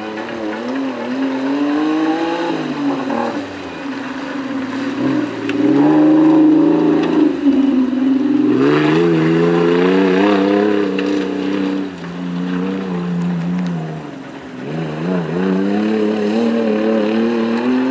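Small off-road SUV's engine revving through deep mud, its pitch climbing and falling again and again as the throttle is worked. It dips briefly several times and runs loudest around the middle.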